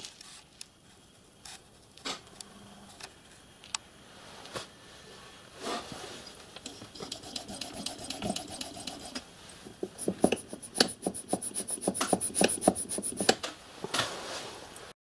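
Piston rod of a miniature steam-locomotive cylinder worked by hand, the oiled phosphor-bronze piston sliding in its bore with a rubbing scrape, then a quick run of clicks near the end.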